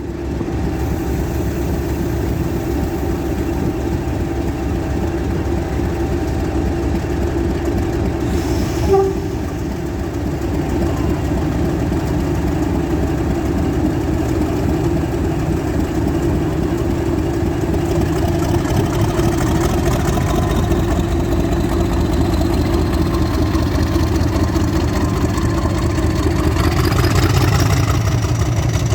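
Class 50 diesel locomotive, its 16-cylinder English Electric engine running hard with a steady drone that slowly grows louder. There is a short knock about nine seconds in, and near the end a whine rises in pitch.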